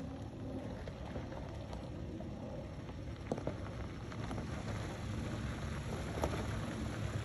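Off-road 4x4 vehicle driving on a dirt trail: a steady low rumble of engine and tyres with gritty road noise and a few sharp knocks, one about three seconds in and another near the end.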